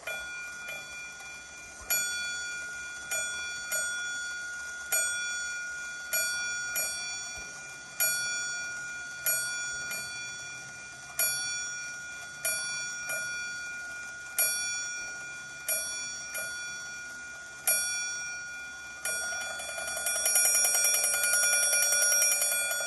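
Westclox Big Ben Chime Alarm's chime going off: slow, uneven single strikes on its bell, about one a second, each ringing on, changing near the end to rapid continuous ringing. A very soft chime, which the owner suspects comes from the chime spring not getting a full wind.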